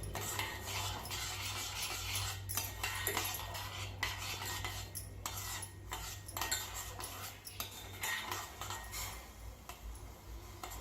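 Spoon stirring and scraping in a pan of heating lemon-and-sugar syrup, with irregular clinks against the pan, over a steady low hum.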